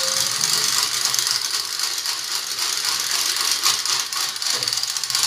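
Beater whisking cake batter in a stainless steel bowl: a steady, fast metallic rattle of the whisks against the bowl.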